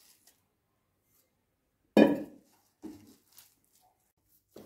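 Stainless-steel plate clinking and knocking as dough is kneaded in it: one sharp knock about two seconds in, then a few lighter clinks.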